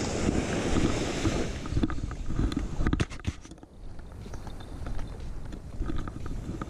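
Wind buffeting the microphone on an open beach, with small waves washing up the sand in the first second or so and a few short scraping clicks about halfway through.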